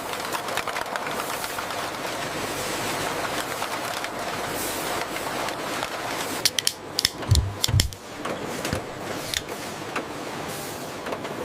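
Steady factory machinery noise from a production line, with a burst of sharp metallic clatter and two heavy thumps about seven seconds in.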